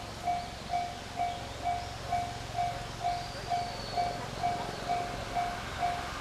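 Japanese level-crossing warning bell ringing in a steady electronic ding, about two strikes a second, the signal that a train is approaching and the crossing is closed.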